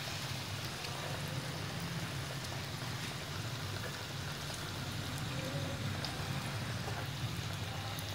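A puri deep-frying in hot oil: a steady sizzle with small scattered crackles as it is pressed down with a spoon to make it puff. A low steady hum runs underneath.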